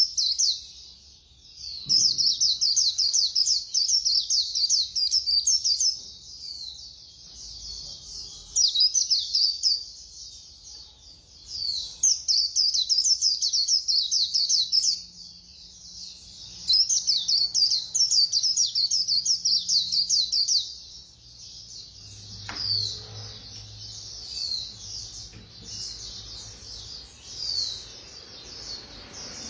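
A white-eye singing its fast, high twittering song in bouts of a few seconds, each a rapid run of chirps with short breaks between. From about 22 s in, the song gives way to scattered single calls.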